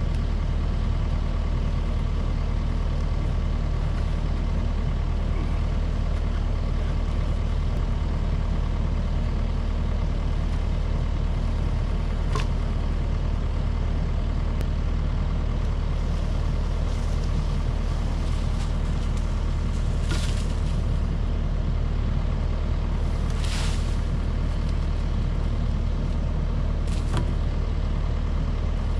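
Diesel engine of a piece of heavy equipment running steadily at a constant speed, with a few short clanks or hisses along the way.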